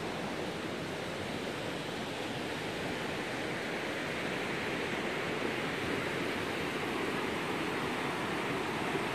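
Steady rush of a river running white over boulders, growing slightly louder about four seconds in.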